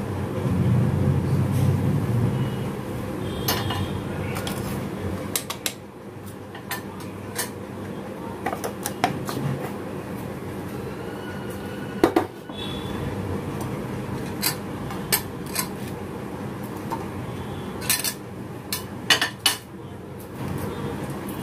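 Kitchen handling sounds: a metal spoon clinking and scraping against a glass jar and a plate of toast, with scattered light knocks as the jar is handled. The sharpest knock comes about twelve seconds in, and a quick cluster of clinks follows near the end.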